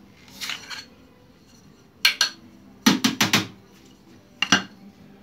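Hard clacks and knocks from a fishing rod being handled: a soft rustle about half a second in, then a sharp clack, a quick run of four knocks, and one last knock near the end.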